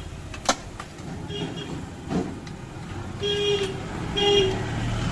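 A horn tooting in short blasts, three times, the last two louder, with sharp clicks and knocks between them.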